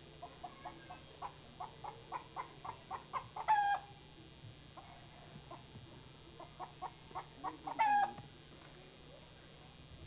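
A chicken clucking in runs of quick short clucks, each run ending in a longer, louder drawn-out call, twice.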